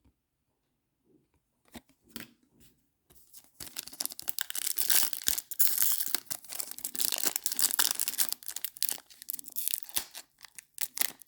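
Wrapper of a sealed baseball card pack crinkling and tearing as it is worked open, starting about three and a half seconds in after a few faint clicks. The pack is tightly sealed and resists opening.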